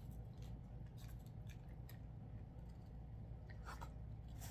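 Faint small clicks and handling noises of tableware and food containers, with a brief scrape near the end, over a steady low hum.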